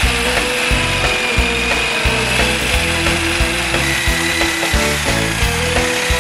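Corded reciprocating saw cutting into a steel frame bracket: a steady motor whine over a fast, even rhythmic rasp.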